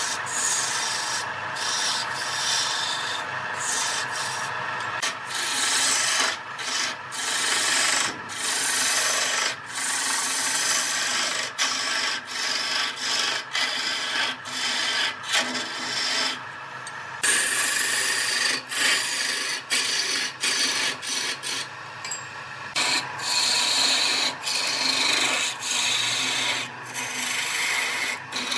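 A turning gouge cutting a spinning wooden spindle on a wood lathe: a continuous rough scraping hiss that breaks off briefly many times as the tool lifts from the wood, with one longer pause about two-thirds of the way through. A steady hum runs underneath.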